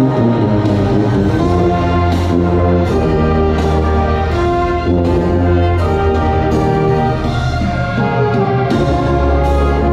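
A brass-heavy wind ensemble playing held chords that change every second or so, with strong low tuba notes underneath.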